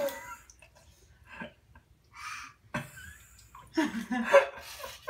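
A baby laughing and squealing in short bouts, with light splashing of bathwater.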